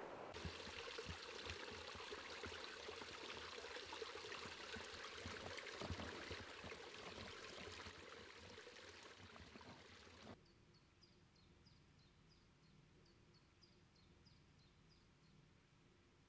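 Woodland stream running over rocks, a steady rushing that cuts off abruptly about ten seconds in. After that, quiet woodland ambience with faint high bird chirps repeating two or three times a second.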